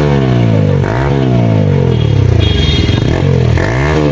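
TVS Apache RTR 160 4V single-cylinder motorcycle engine revved through a loud aftermarket exhaust: quick throttle blips that rise sharply and fall back, three in all, with a sagging fall-off between them.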